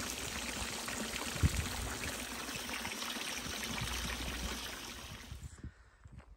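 Water pouring steadily from the metal spouts of a stone village fountain and splashing into its basin. The sound cuts off about five and a half seconds in, and a few faint footsteps follow near the end.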